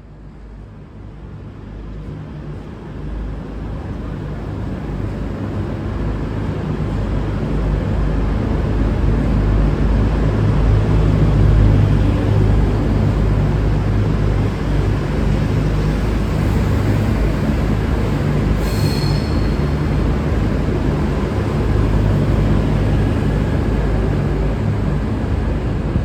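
Two coupled V/Line VLocity diesel multiple units pulling out of the station: diesel engine hum and wheel-on-rail noise grow steadily louder over the first ten seconds, then run on steadily. A brief high squeak comes about two-thirds of the way through.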